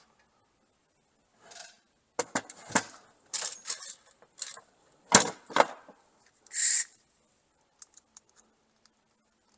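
Handling noise from electrical fittings being put back in place: a run of sharp clicks and knocks about two to six seconds in, then a short rustle near seven seconds and a few faint ticks.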